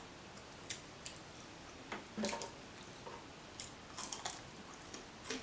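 Soft eating sounds close to the microphone: chewing and wet mouth smacks, with a few short light clicks scattered through.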